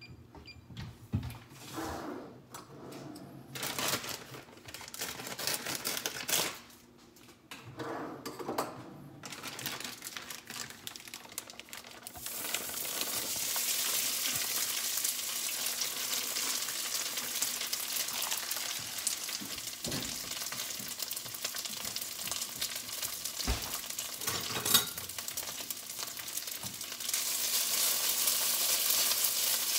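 Scattered handling noises, then potatoes sizzling in hot oil in a frying pan from about twelve seconds in. The sizzle goes on steadily with a few spatula knocks against the pan and gets louder near the end.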